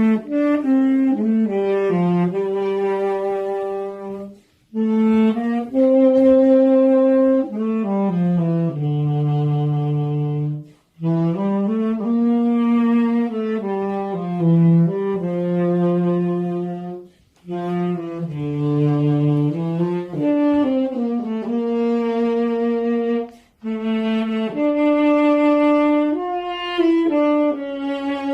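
Solo tenor saxophone playing a melody of held notes in phrases, with short breath pauses between them.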